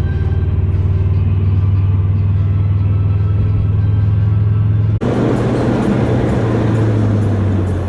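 Car on the road, heard from inside: a steady low engine and road drone. About five seconds in it changes abruptly to a louder rushing road noise over the lower drone.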